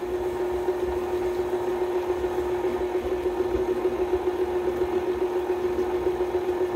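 KitchenAid stand mixer running steadily on low speed, its rubber-edged beater mixing batter in the bowl: a constant motor hum.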